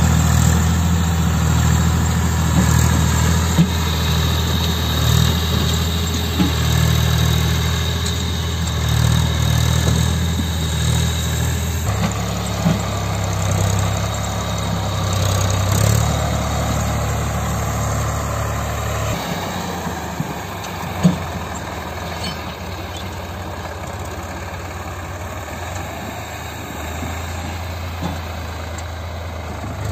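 Eicher 5660 tractor's diesel engine running steadily while pulling a fully loaded sugarcane trolley. The engine note drops a little about twelve seconds in and again a few seconds later. A few short sharp clanks sound over it, the loudest about two-thirds of the way through.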